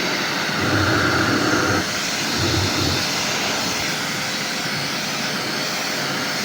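Kärcher pressure washer jet spraying water into a clogged radiator core to blast out packed dirt and grass: a steady hiss of high-pressure spray.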